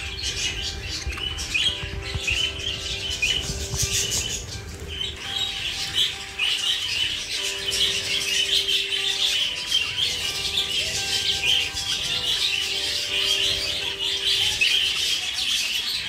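A group of budgerigars chattering, a continuous run of rapid chirps and warbles.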